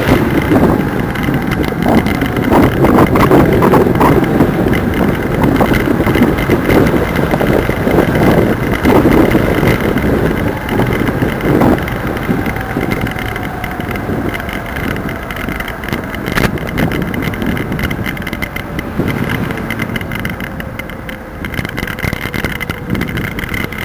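Wind buffeting and rattling from a handlebar-mounted camera on a bicycle riding along a paved road, with scattered knocks from bumps. It is loudest in the first half and eases off after about ten seconds.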